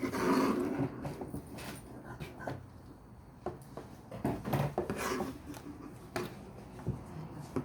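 Irregular rubbing and rustling with scattered light knocks and clicks, like paper or fabric being handled and slid across a work table.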